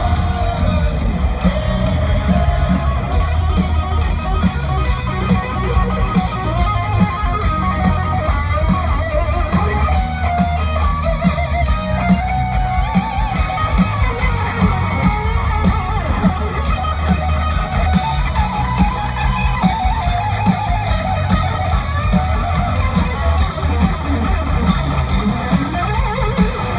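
Live rock band playing an instrumental stretch led by a distorted electric guitar playing lead lines over drums and bass guitar, loud, with no singing, heard from within the crowd.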